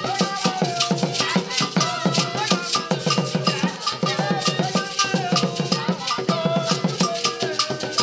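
Traditional drum-and-percussion ensemble playing a fast, steady beat, with voices singing over it.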